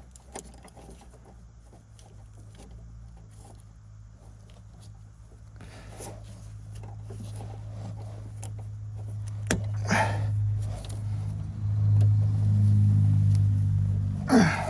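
A low vehicle engine hum that builds up over several seconds and drops away near the end, over scattered small clicks and scrapes of hand-tool work on a metal fitting.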